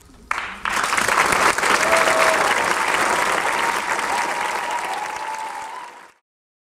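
Concert audience applauding, breaking out suddenly just after the start and tapering off, then cut away about six seconds in.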